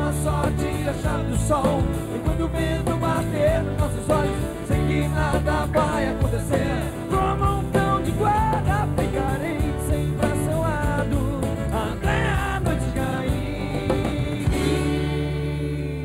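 Live acoustic rock band: a singing voice over strummed acoustic guitars, acoustic bass guitar and drums. The singing breaks off near the end while the instruments play on.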